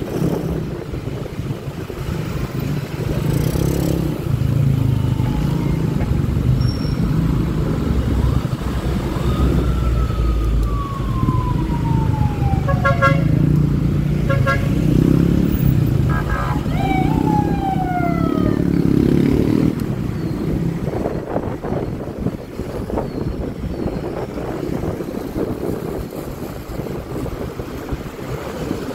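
Steady rumble of wind on the microphone and the engine of a Honda Click 125i scooter being ridden. A vehicle horn beeps twice a little before halfway through and once more soon after, and a few tones slide down in pitch.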